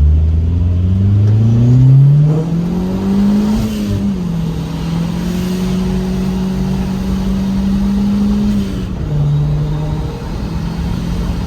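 Turbocharged 2.0 L B20B4 four-cylinder engine of a 1998 Honda CR-V revving. Its note climbs for about three and a half seconds, settles a little lower and holds steady for about five seconds, then drops near the end.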